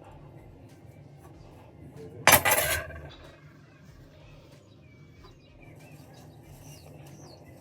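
A short, loud clatter of a hard object set down on a hard surface about two seconds in, over a low steady hum.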